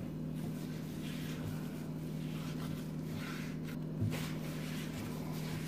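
Hands kneading and pressing a crumbly dough on a work surface, heard as faint soft rubbing and pressing sounds over a steady low hum.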